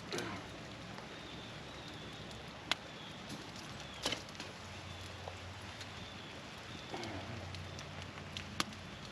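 Campfire with fresh wood burning, a low steady hiss broken by a few sharp single pops, about three seconds in, four seconds in and near the end.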